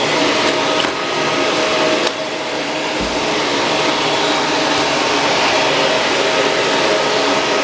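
Shark Rotator Pro Lift-Away NV500 vacuum cleaner running steadily, a dense rushing noise with a constant hum tone, and a few light clicks in the first two seconds.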